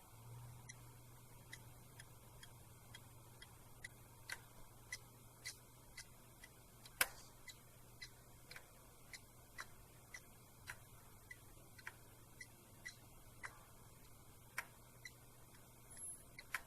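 Faulty laptop hard disk drive spinning with a low hum and clicking faintly and regularly, about two clicks a second, with one louder click midway: the repeated click of a dead drive, a sign of mechanical failure.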